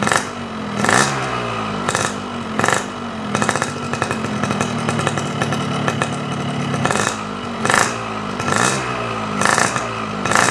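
Hot Yamaha two-stroke motorcycle engine with an aftermarket Boban C33 exhaust being revved on the stand in repeated short throttle blips, its pitch rising and falling each time. It holds a steadier raised speed for a few seconds in the middle before the blips resume.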